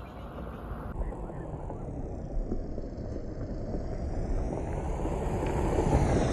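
Tata Altroz hatchback driving, a steady rumble of engine and road noise that grows gradually louder.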